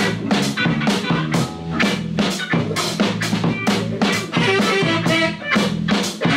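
Dance music with a steady drum beat and a bass line, played loud over a DJ's sound system.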